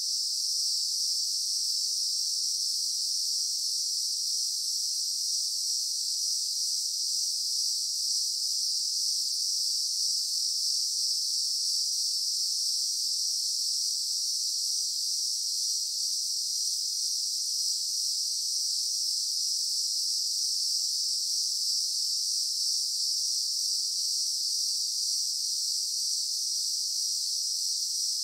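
A steady, high-pitched chorus of insects, shrill and unbroken.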